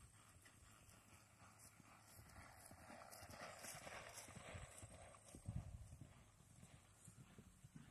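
Buckskin saddle horse loping on grass: faint, dull hoofbeats that grow louder as it passes close, strongest about five to six seconds in.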